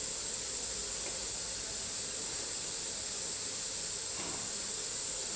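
Steady high-pitched hiss of a lit butane gas soldering iron burning.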